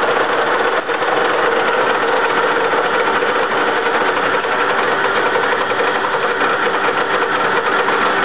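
Soviet 1K62 lathe facing the end of a steel workpiece at 250 RPM, the tool cutting at 0.52 mm/rev feed: a loud, steady machining noise with a steady tone running through it.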